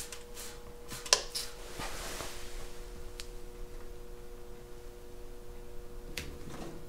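Hand trigger spray bottle squirting soap-and-water solution onto a painted metal panel: several short hissing squirts in quick succession in the first second and a half, the sharpest about a second in, then a softer longer hiss. After that, quieter handling sounds of the wet vinyl decal and its backing paper, with a short stroke just after six seconds, over a faint steady hum.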